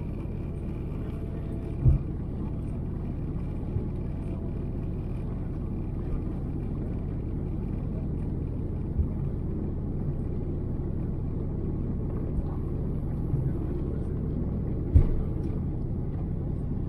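Steady low rumble inside the cabin of a jet airliner taxiing, its engines at low power, with a few brief low thumps, the loudest about fifteen seconds in.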